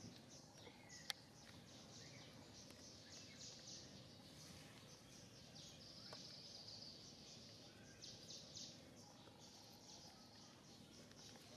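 Near silence: faint outdoor ambience with quick, high-pitched chirps throughout, and one sharp click about a second in.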